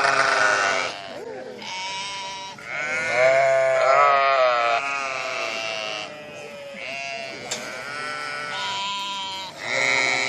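Sheep bleating, about half a dozen wavering calls one after another, some overlapping as though from more than one animal. The longest and loudest call comes from about three to five seconds in.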